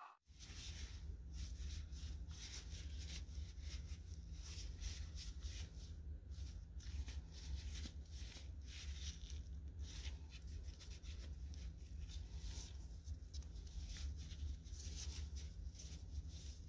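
Paper towel rustling and rubbing in many short, irregular scratchy strokes, over a steady low hum.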